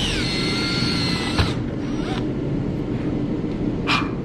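Power drill running in reverse to bore through thin plastic. The motor whine drops in pitch at the start and cuts off with a click about a second and a half in, with another short burst of drilling near the end.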